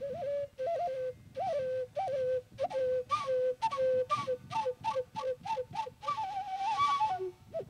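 Native American flute playing a slow melody of short, breathy notes, climbing higher into a longer held phrase near the end and closing on a brief low note.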